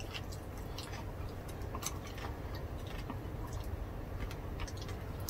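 Quiet chewing and mouth sounds of people eating with their hands, faint scattered clicks and smacks over a steady low hum.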